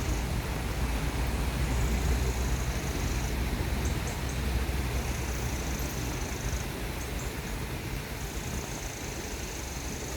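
Steady riverside background noise with a low rumble. Over it, a thin high buzz comes in runs of about a second and a half, repeating roughly every three seconds, with a few faint ticks after each run.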